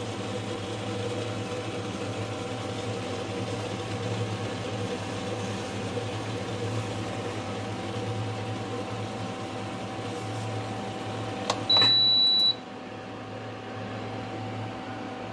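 Induction cooktop running with a steady hum from its cooling fan and coil. Nearly twelve seconds in, a control is pressed with a click and the cooktop gives one high beep lasting under a second, after which the hum drops a little quieter.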